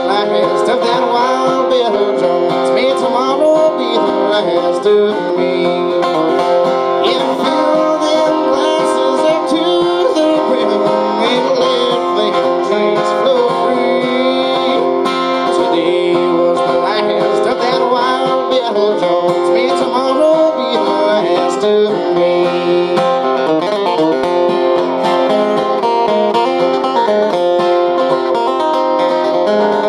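Live bluegrass acoustic guitar playing continuous picked lead lines with quick, sliding note runs.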